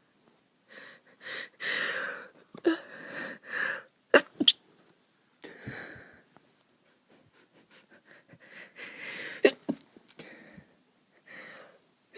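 A woman sneezing: breathy, hitching inhales as each sneeze builds, then short, sharp sneezes that she tries to stifle, two in quick succession about four seconds in and two more about nine and a half seconds in.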